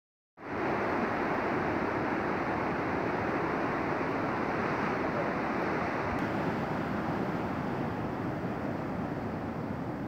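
Steady rush of falling water from a waterfall, an even roar without breaks.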